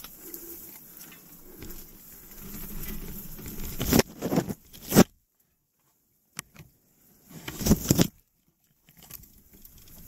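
Rustling and scuffing while a mountain bike is pushed on foot through rough, overgrown ground, broken by three loud scraping bursts about four, five and eight seconds in.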